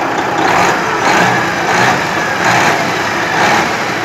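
Detroit Diesel 12.7-litre (Series 60) inline-six diesel running warm with its hood open, a steady engine noise that swells about every two-thirds of a second.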